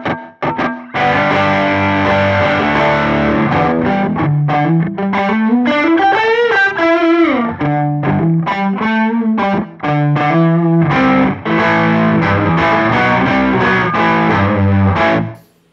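Electric guitar played through a Line 6 modeler preset with a slapback double-tracking delay and modulation (the 'Deco slap' snapshot), strumming chords from about a second in. Midway a note glides up and back down, and the playing pauses briefly around eleven seconds.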